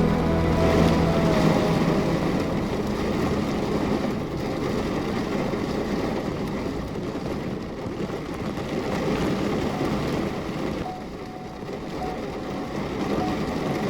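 Steady heavy rain falling, a dense even hiss, with the last notes of music dying away in the first second or two.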